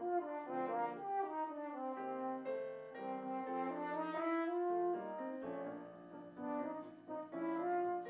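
French horn playing a slow melody of held notes, accompanied by piano.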